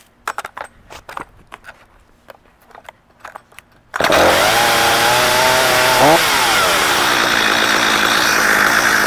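A few light clicks and knocks, then about four seconds in a Stihl 025 (MS 250) two-stroke chainsaw fires up abruptly and runs fast. About two seconds later its pitch falls and it settles into a steady idle.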